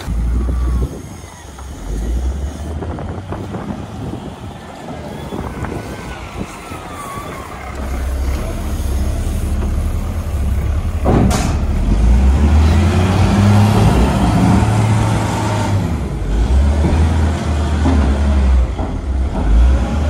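Volvo wheel loader's diesel engine running under load, a low rumble that gets louder from about eight seconds in. A single sharp knock comes about eleven seconds in.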